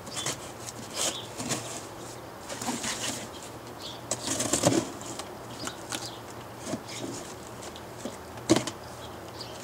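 A cardboard box being cut open with a box cutter and its flaps handled: irregular scratchy slicing of tape and cardboard, with scattered clicks and rustles and a sharper knock near the end.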